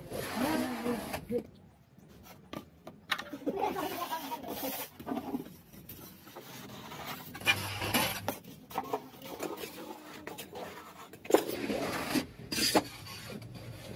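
Wet cement being rubbed and scraped smooth over a roof tile mold by hand, in irregular gritty strokes with occasional sharper scrapes and taps.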